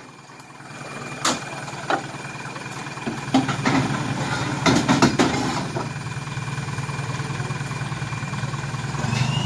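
Off-road 4x4 vehicle's engine running steadily, with several sharp clunks over the first few seconds and a high whine that rises in pitch near the end.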